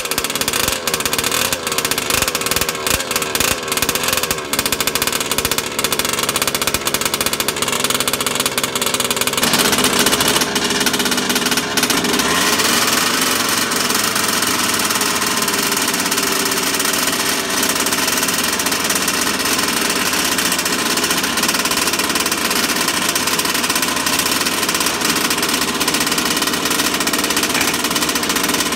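Small two-stroke gas engine of a 1/5-scale RC car running, a new engine being broken in. It runs rough and uneven for about the first ten seconds, then picks up and runs faster and smoother for the rest.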